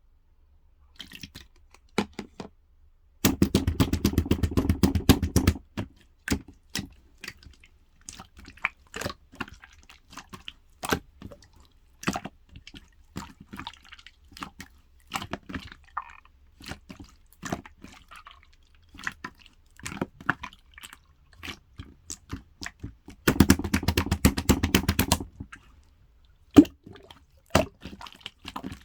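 Yellow clear slime worked by hand, giving sticky wet clicks and small air-bubble pops. Twice it breaks into a dense run of rapid popping lasting about two seconds, a few seconds in and again past the twenty-second mark.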